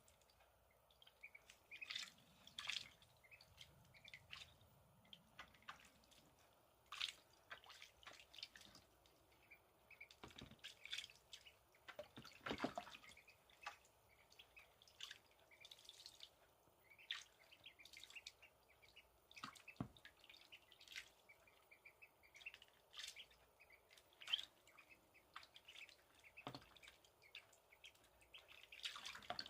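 Call duck ducklings paddling and dabbling in water in a plastic storage case: faint, irregular splashes and drips.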